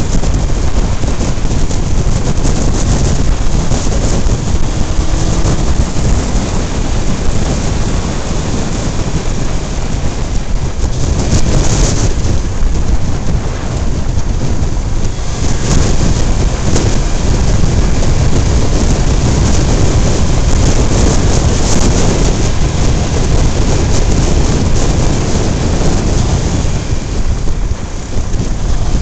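Wind blasting a camera microphone mounted low on a moving vehicle at road speed, mixed with tyre and road noise: a loud, steady rushing noise that eases briefly near the end.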